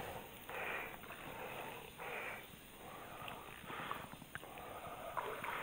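A man's breathing close to the microphone: soft breaths about every one and a half seconds, with a few faint clicks near the end.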